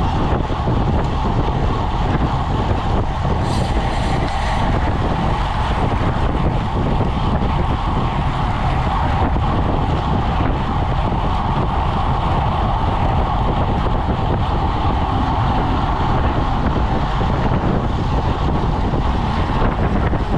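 Steady wind rush buffeting the microphone of a road bike's camera at about 25 mph, mixed with the hum of riding on asphalt. There is a brief higher hiss about four seconds in.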